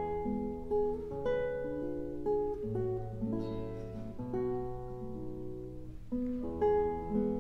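Clarinet and nylon-string classical guitar playing a duet: a melody of held notes over plucked guitar notes and low ringing bass notes.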